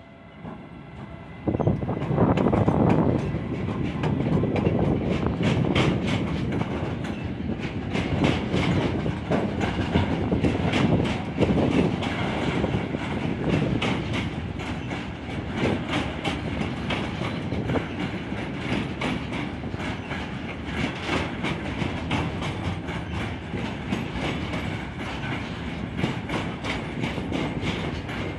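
Siemens Vectron electric locomotive and its intermodal container wagons passing close by: the sound rises sharply about a second and a half in, then the wagons roll past with a steady clickety-clack of wheels over rail joints.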